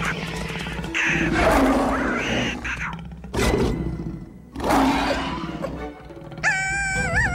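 Film soundtrack of a lion-and-monkey scene: animal cries, with two loud ones about a second and five seconds in, over music. Near the end a held musical note sets in and wavers.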